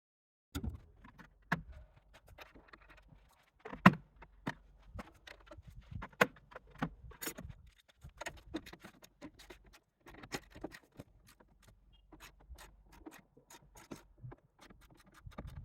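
Irregular metallic clicks, clinks and knocks of hand tools and loose parts while trim and panels are worked off an old car body. One knock about 4 seconds in is the loudest.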